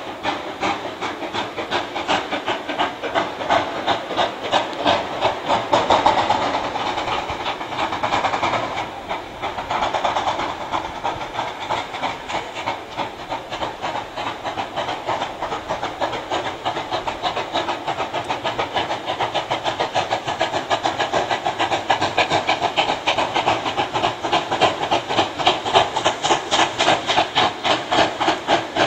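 Two steam locomotives double-heading a passenger train and working hard, their exhaust beats coming in a rapid chatter and growing louder as the train approaches.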